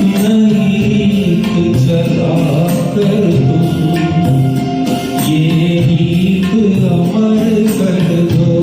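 Ghazal music: a melody over a steady percussion beat, about two to three strokes a second.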